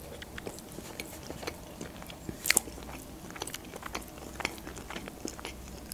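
A person chewing a mouthful of food, with small wet mouth clicks scattered throughout and a sharper click about two and a half seconds in.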